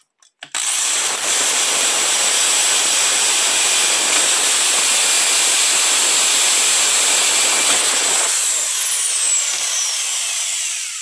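Corded electric drill with a large bit boring through 3/4-inch PVC pipe. The motor spins up with a rising whine about half a second in and runs steadily while the bit cuts the plastic. About eight seconds in the cutting stops and the motor whine falls as the drill winds down.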